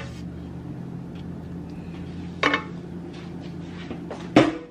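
Kitchenware knocking twice, a glass bowl against the foil-lined baking pan, about halfway through and near the end, over a steady low hum.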